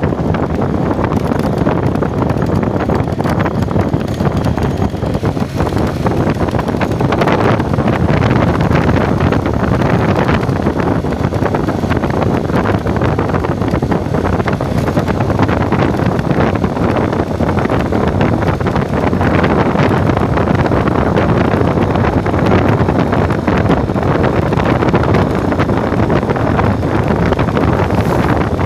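Heavy wind buffeting the microphone over the steady running noise of a vehicle on the move.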